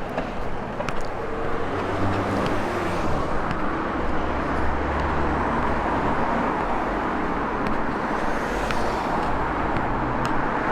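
Town street traffic noise: car engines and tyres, with a heavier engine rumble passing about halfway through.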